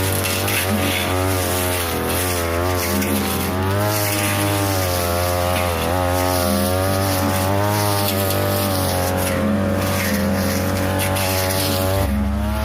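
42cc two-stroke brush cutter with a metal blade running at high speed while cutting dense scrub, its engine pitch wavering up and down as the blade bites into the growth. The sound settles to a lower hum near the end.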